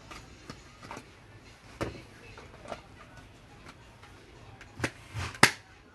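Handheld rechargeable LED torch being handled: scattered light clicks and knocks, with two louder knocks close together near the end.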